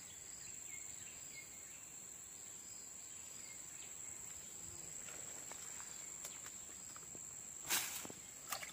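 Insects keeping up one steady high-pitched buzz, with a brief sudden noise near the end.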